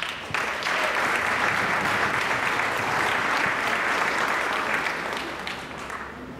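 Audience applauding an award winner whose name has just been called. The clapping starts a moment in, holds steady, then dies away near the end.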